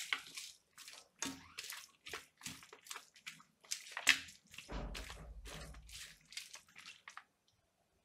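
A hand mixing raw chicken pieces with spice powders and salt in a steel plate: wet squelching and slapping in quick, irregular bursts that stop about seven seconds in, with a brief low rumble near the middle.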